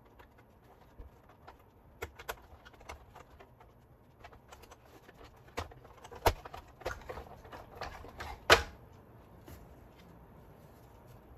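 Scattered light clicks and knocks of small parts and tools being handled while a gyro stage mechanism is taken apart, with the sharpest knock about eight and a half seconds in.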